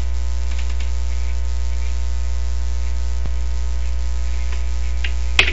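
Steady electrical mains hum with a ladder of higher hum tones, picked up by the recording microphone, and a single faint click about three seconds in.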